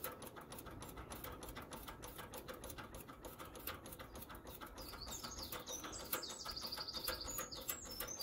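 Rapid, faint clicking of a Lister B engine's fuel lift pump being worked by hand to prime the carburettor. A small bird chirps repeatedly from about halfway through.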